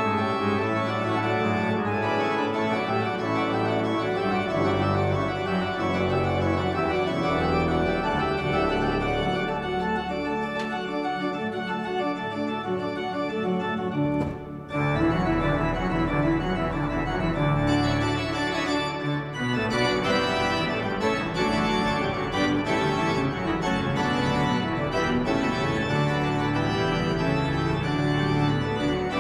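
Church pipe organ playing full sustained chords on the manuals, with low bass notes from the pedals. The music breaks off briefly about halfway through, then carries on.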